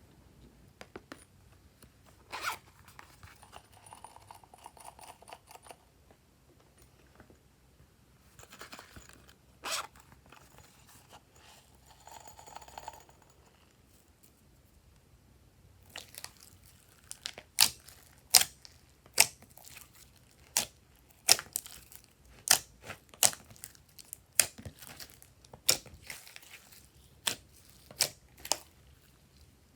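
Glossy slime being handled: soft sticky stretching and squishing, with a few isolated sharp pops early on. From about halfway comes a steady run of sharp clicking pops, one or two a second, as the slime is pressed and air pockets snap.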